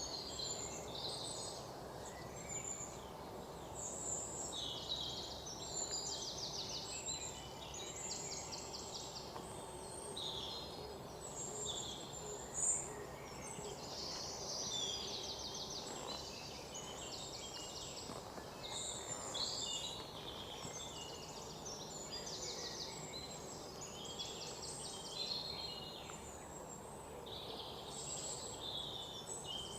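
Many small birds chirping, with repeated rapid trills, over a steady low background hiss.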